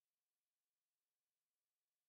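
Near silence: digital silence with only a faint steady hiss.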